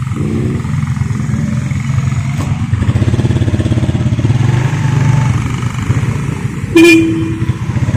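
Motorcycle engine running steadily while riding on the road, with a short loud beep about seven seconds in.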